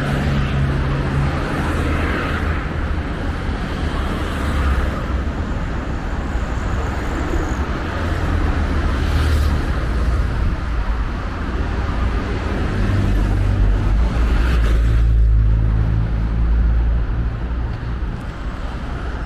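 Steady city road traffic: vehicle engines and tyre noise with a low rumble that grows louder for a few seconds past the middle.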